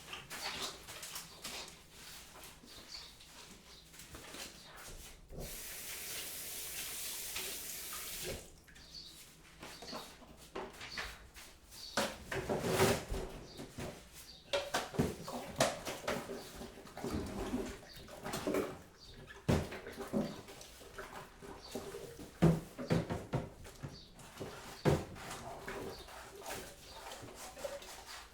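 Kitchen work sounds: scattered clinks and knocks of crockery and utensils, with water running for about three seconds around five seconds in.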